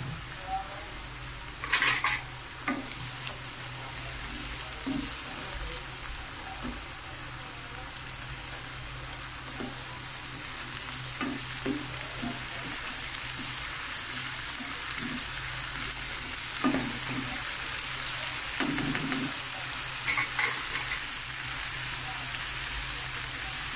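Chopped tomatoes and browned onions sizzling in hot oil in a frying pan, with a spatula now and then scraping and knocking against the pan as they are stirred. The sizzle gets a little louder about halfway through.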